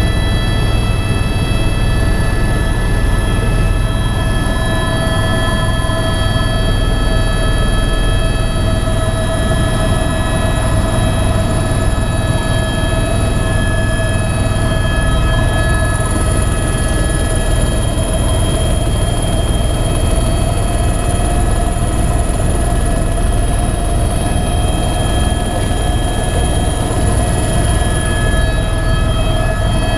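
Helicopter cabin noise during takeoff and climb: a loud, steady engine and rotor drone with a pulsing low rumble and a constant high turbine whine.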